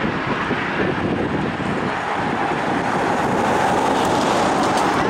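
Steam-hauled passenger train running along the track and away, a steady rushing noise from the carriages' wheels and the working locomotive.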